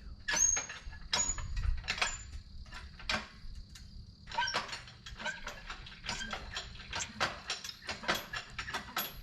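Irregular metallic clinks and clanks of hand tools and steel parts being handled, some of the strikes ringing briefly. They come thickest from about four seconds in.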